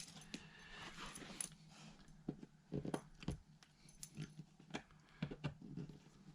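Faint, scattered clicks and light knocks from hand tools and parts being handled during outlet work, over a low steady hum.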